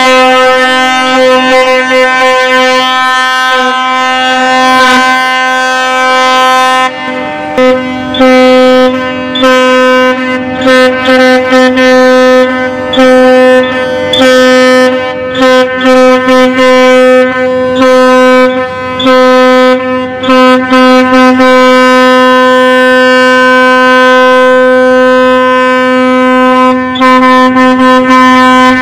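Tugboat horns sounding one long, unbroken blast at a steady pitch. A second horn at a slightly higher pitch overlaps briefly at the start.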